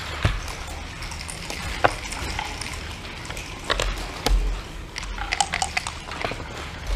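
Backgammon checkers and dice clacking on a wooden board, and a game clock's button being pressed: a series of sharp clicks and knocks, with a quick cluster of clicks about five seconds in.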